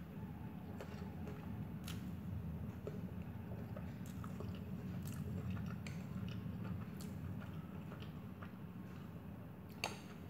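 Close-up mouth sounds of a person chewing a mouthful of noodles, with small wet clicks and smacks over a steady low hum. There is one sharp click near the end.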